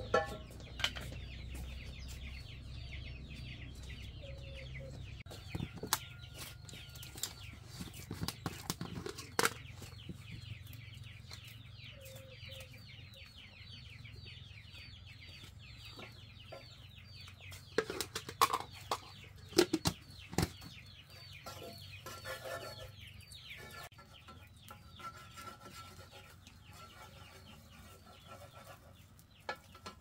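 Chickens calling continuously, a dense stream of short high peeping calls that fall in pitch, with scattered sharp knocks and clicks, the loudest cluster about two-thirds of the way through.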